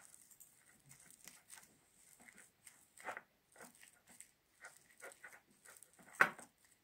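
A metal fork mashing and stirring baked potato flesh with melting cheese in a ceramic bowl: irregular soft scrapes and clicks, with one louder clack near the end.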